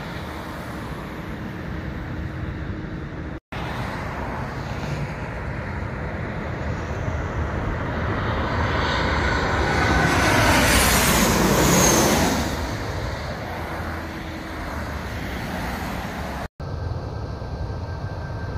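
Boeing 737-700 jet airliner on final approach, passing low overhead. The engine roar builds to its loudest about ten to twelve seconds in, with whining tones sliding down in pitch as it goes over. Brief dropouts near the start and near the end mark cuts to the quieter jet noise of other airliners landing.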